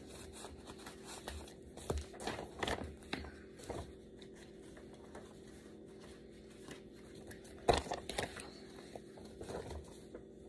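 Sheets of paper being handled and shuffled through, a run of short rustles and scrapes, the loudest a little under eight seconds in.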